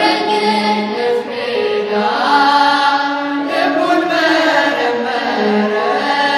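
Mixed choir of men and women singing an Ethiopian Orthodox Tewahedo hymn (mezmur) together, without a break.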